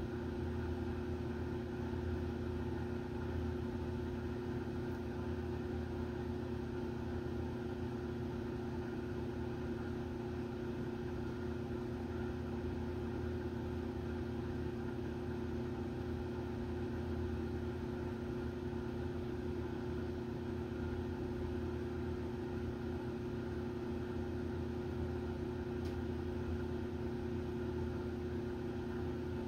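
Steady electrical or machine hum: a low drone with a buzzing tone held at an even level, unchanging throughout.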